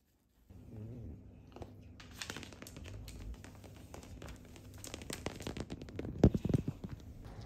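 Miniature schnauzers' paws and claws clicking and scratching on a tiled floor as the dogs shift and step in place: a run of quick, uneven small clicks with a few louder knocks about six seconds in.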